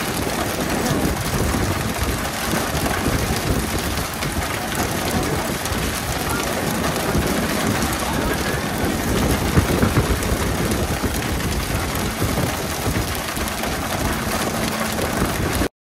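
Steady rain-like hiss of the pole-and-line boat's water sprayers spraying onto the sea surface, where they mimic baitfish to keep the tuna school feeding, mixed with splashing. A few louder knocks come about ten seconds in, and the sound cuts off suddenly just before the end.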